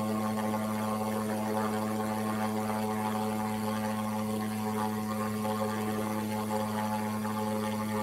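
Steady droning hum, two deep tones held unchanged with a band of fainter higher tones above them.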